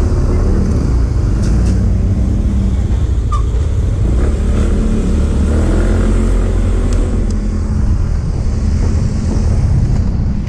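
Motorcycle engine running as the bike pulls away and rides off, with a steady low rumble of engine and road noise on the bike-mounted microphone.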